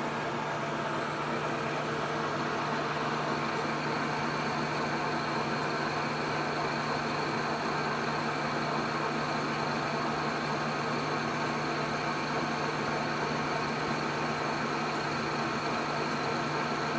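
Metal lathe running steadily while a boring bar cuts the inside of a spinning brass bushing: an even machine hum with a constant low drone and cutting hiss, no change in pace.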